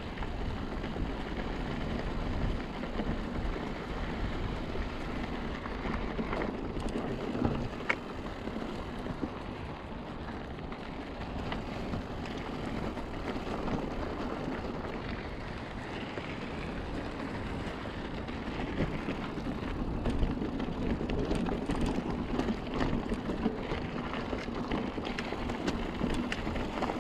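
Mountain bike rolling over a dirt and gravel fire road: steady tyre crunch and rattle of the bike, with wind on the microphone and scattered sharp clicks. It gets a little louder in the last third.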